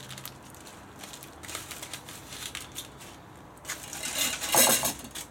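Aluminium foil crinkling as it is peeled off a camping pot and scrunched into a ball, in irregular rustles that are loudest about four and a half seconds in.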